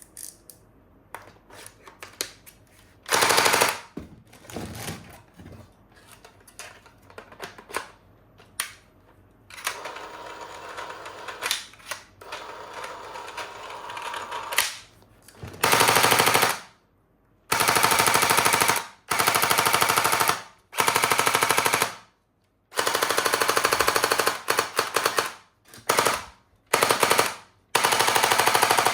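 Toy gun firing rapid-fire bursts, each about a second long with short gaps, coming thick in the second half. Before them are scattered clicks and handling of the toys, with one short burst about three seconds in.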